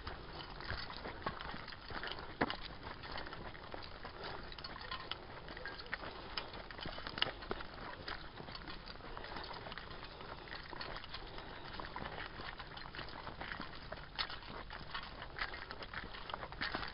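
Footsteps on a dirt forest path strewn with leaves and small stones: a continuous run of soft crunches and irregular clicks at walking pace.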